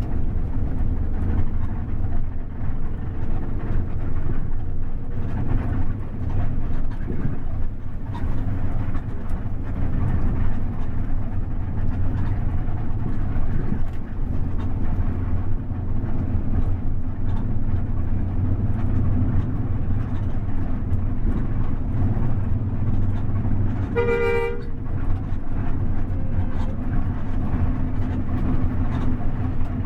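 Steady engine and road drone of an intercity bus heard from inside the cabin, with one short horn toot about 24 seconds in.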